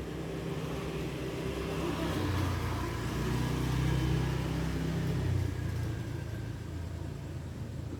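A motor vehicle's engine passing by: it grows louder to a peak about four seconds in, then fades.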